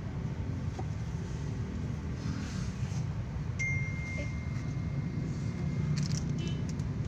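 Steady low engine and road rumble inside a moving taxi's cabin. About halfway through, a single steady high electronic beep sounds for about two and a half seconds, then stops.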